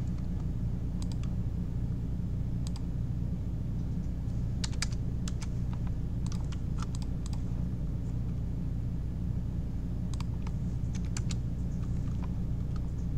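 Computer keyboard keys tapped in short, scattered runs of clicks over a steady low hum.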